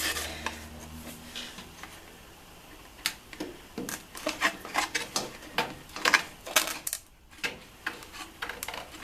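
A run of irregular light clicks and knocks, several a second, starting about three seconds in, with a short pause near the end.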